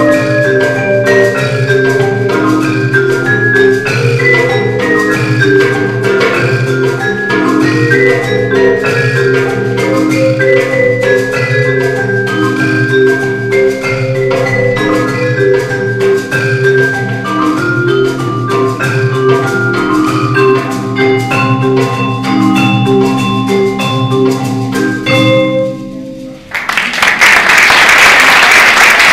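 Marimba and a metal-bar mallet keyboard instrument playing a chamber percussion piece, many ringing struck notes. The piece ends about 26 seconds in and the audience breaks into applause.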